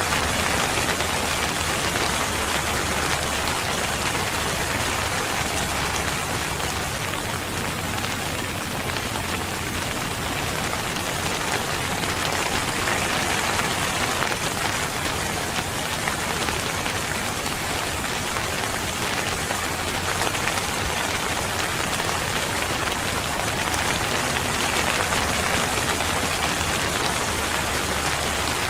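Steady rain falling on a surface, a dense, even patter of many drops with no pauses.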